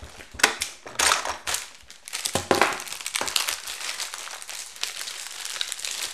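Clear plastic bag crinkling and rustling as a toy part is pulled out of it, with a few sharp clicks of hard plastic toy pieces being handled in the first couple of seconds.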